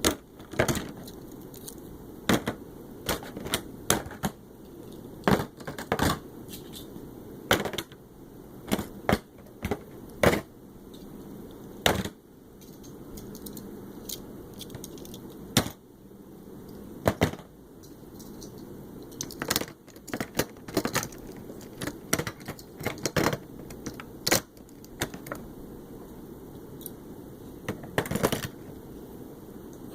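Irregular sharp clicks and knocks, sometimes single and sometimes several in quick succession, over a steady low background noise.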